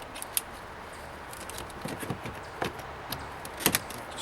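Scattered sharp plastic clicks and knocks as wiring-harness connectors are handled and pushed into a door's electrical switch panel, the loudest click coming near the end.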